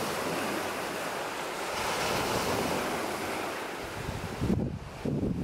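Small sea waves washing up and drawing back over a pebble and shingle beach, swelling about two seconds in. Wind buffets the microphone with low rumbles near the end.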